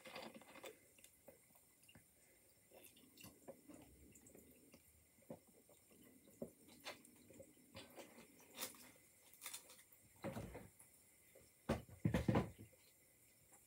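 Quiet handling of a plastic drink bottle: the cap twisted open, then small clicks and swallowing sounds as someone drinks from it. Louder knocks and rustling near the end, from the phone being handled.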